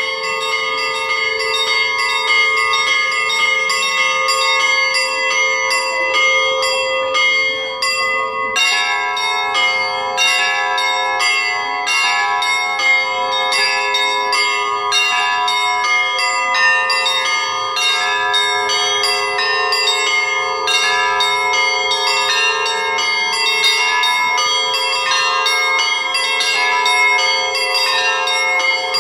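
Russian Orthodox monastery bells rung by hand in a continuous zvon. Quick strikes on the small bells ring over the sustained hum of the larger bells, and the pattern changes about eight and a half seconds in as other bells join.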